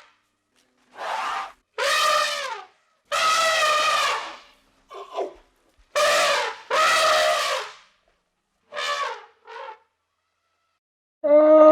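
A series of about eight short, pitched animal calls, each under a second long and separated by brief silences, several dropping in pitch at the end.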